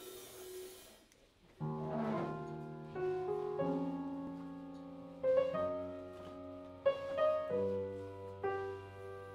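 Upright piano playing slow, sustained jazz chords. The first chord comes in about a second and a half in, then a new chord is struck every second or two, with low notes held beneath.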